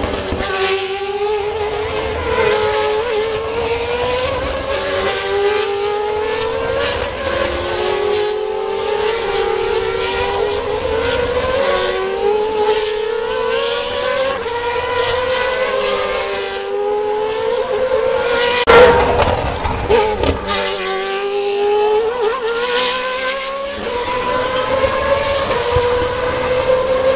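Formula race car engines running at speed around the circuit. Each climbs in pitch and drops back at every gear change, over and over. A sharp thump about nineteen seconds in.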